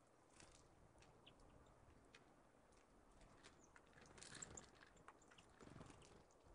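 Faint, scattered ticking and short high chirps of small songbirds feeding at a seed feeder, with a brief flurry of wingbeats and pecking about four seconds in.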